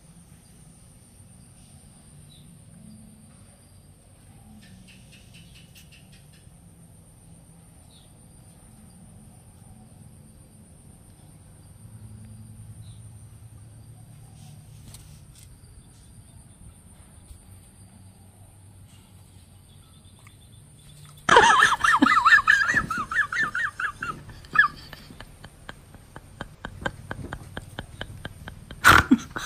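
About twenty seconds of quiet outdoor background with a faint steady insect trill. Then a dog suddenly gives a loud, high, wavering yelping cry for a few seconds, its reaction to sour lime juice squeezed into its mouth, followed by quick repeated clicking or smacking sounds and another loud outburst near the end.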